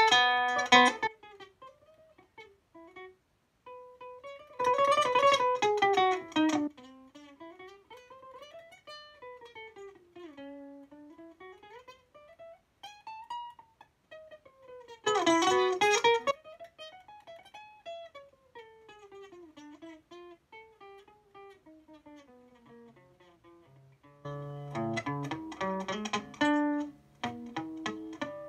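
Acoustic guitar played solo: quiet single-note melodic runs that rise and fall, broken by short loud passages of rapid strumming about five and fifteen seconds in, and fuller chords with bass notes near the end.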